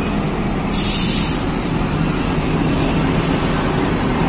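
Diesel engine of a PO Haryanto intercity coach running steadily as the coach arrives, with a short hiss of compressed air about a second in.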